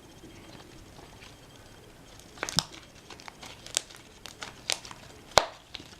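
Slime being squeezed and stretched by hand, giving a run of sharp wet pops and clicks that start about two seconds in. The loudest pop comes near the end.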